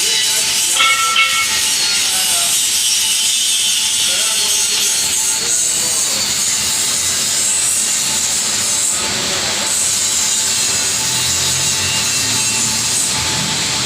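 Hydraulic drilling machine at work: a loud, steady, high hiss and grind, with a brief squeal about a second in.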